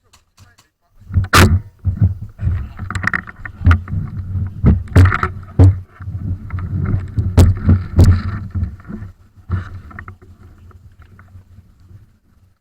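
A run of irregular sharp knocks and clicks over an uneven low rumble, fading out near the end.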